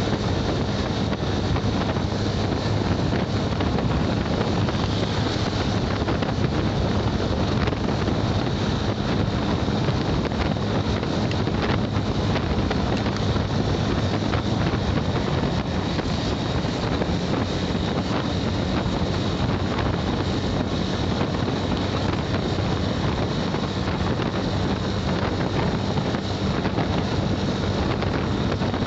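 Steady wind rushing over the microphone of a moving motorcycle, with the engine's low, even hum underneath.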